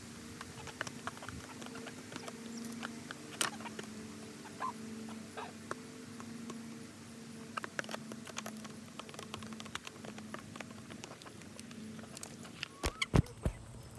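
Chickens pecking cake crumbs from an aluminium foil pan: irregular sharp taps and clicks of beaks on the foil and food. A low steady hum runs underneath for most of the time, and a few louder low thumps come near the end.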